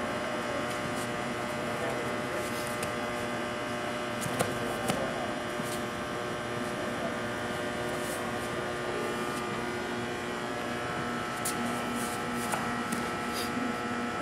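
Steady electrical hum made of several held tones, with a few faint clicks and knocks scattered through it.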